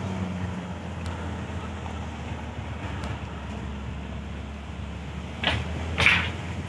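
Car driving along a road, heard from inside the cabin: a steady low engine and road hum. Near the end two short, louder sounds come about half a second apart.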